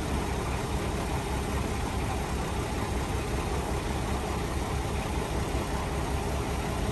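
Heavy diesel truck engine running steadily at idle, with a low throb underneath.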